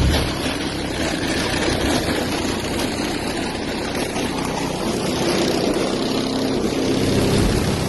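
Car audio subwoofers playing loud bass music, with bass notes shifting in pitch.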